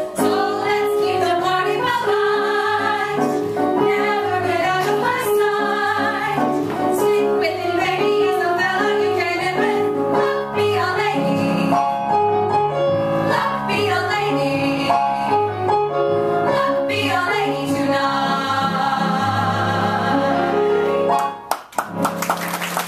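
A group of women singing a show tune in harmony over piano accompaniment. The song ends about a second before the close, and audience applause breaks out.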